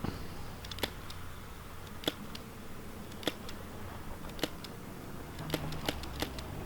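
ESC-23 airsoft pistol, an MK23 clone, fired single shots heard from about thirty paces away: faint sharp snaps roughly once a second, six or seven in all, a little closer together near the end.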